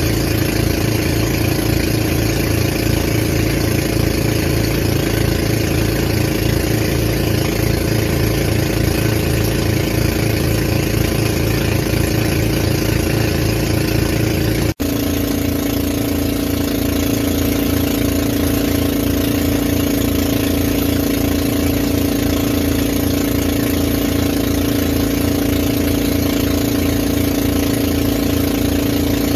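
Motorized outrigger boat (bangka) engine running steadily under way, loud and close, with a low pulsing beat. About halfway through the sound cuts out for an instant, then carries on at a slightly different pitch.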